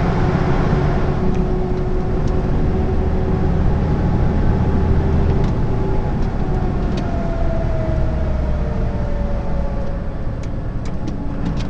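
Lorry cab interior at motorway speed: steady engine drone and tyre and road noise. Midway a whine slowly falls in pitch, and a few light ticks come near the end.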